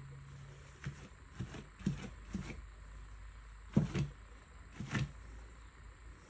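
Soft, irregular taps and knocks of paint being dabbed onto a poster board by hand, about eight light hits with the firmest about four and five seconds in, over a low steady hum.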